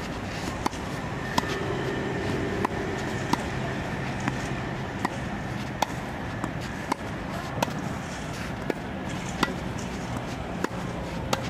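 Tennis ball struck by rackets in a volley rally at the net: about a dozen sharp pocks, roughly one a second, over a steady background hum.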